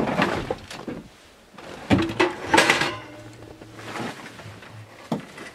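Clunks and scraping of a small metal wood stove being slid out of a pickup truck bed, the loudest scrape about two and a half seconds in with a short metallic ring after it, and a sharp knock near the end.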